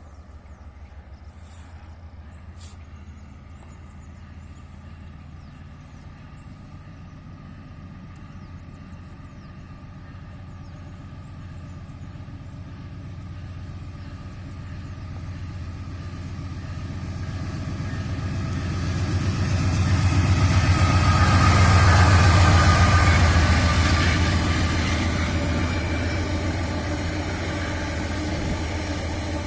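Diesel locomotive approaching and passing, its engine a steady low hum that grows louder to a peak about two-thirds of the way through, then eases off.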